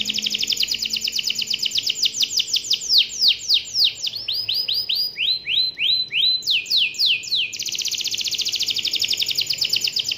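Domestic canary singing a long song: a rapid trill of quickly repeated high notes, then phrases of downward-slurred and rising notes, then another rapid trill that cuts off suddenly at the end.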